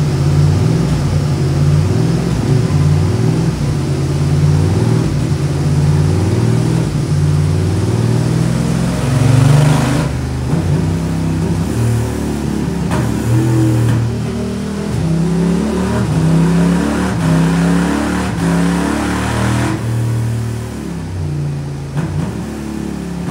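Yamaha MT-07's parallel-twin engine, breathing through a Black Widow race exhaust, revving hard under load on a dyno. The engine builds to its loudest just before ten seconds in and cuts off sharply. A second pull builds from about sixteen seconds and backs off near twenty seconds.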